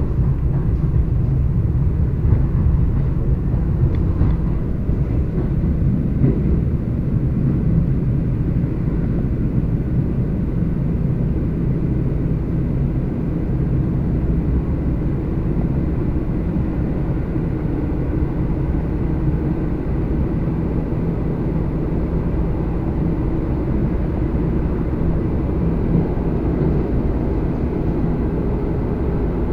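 ED4M electric multiple unit running at speed: a steady rumble of wheels on rail and the moving train, heard from inside the carriage.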